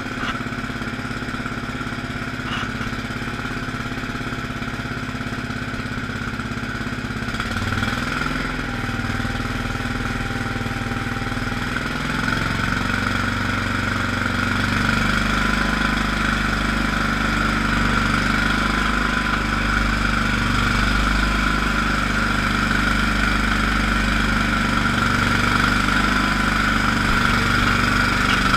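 Allis-Chalmers HB-112 garden tractor engine running at idle, its speed stepping up about eight seconds in and again about twelve seconds in, getting a little louder, with a faint thin whine rising in pitch along with it.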